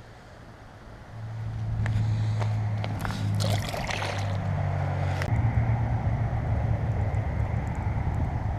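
An engine running with a steady low hum that rises about a second in and changes pitch about five seconds in, with a few clicks and a brief rattle in between.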